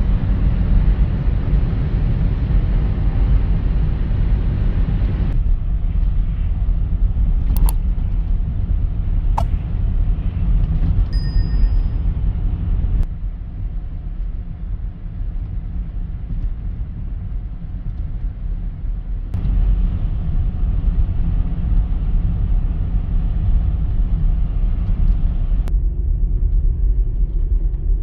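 BMW X3 driving on the road: a steady low rumble of engine and tyres, with the sound changing abruptly a few times where shots are cut together, and a couple of faint clicks.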